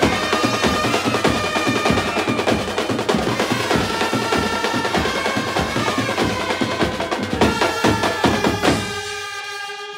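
Koli folk-song dance music with fast, dense drumming over a melody. About nine seconds in the drumming stops, leaving a few held melody notes that fade out.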